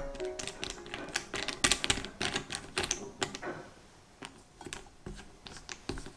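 Compound chocolate wafers poured into a glass bowl, clattering in a rapid run of clicks for about three seconds, then a few lighter, scattered taps.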